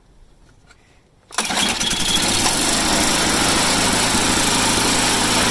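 Ariens snowblower's Tecumseh small engine starting abruptly a little over a second in, then running loud and steady.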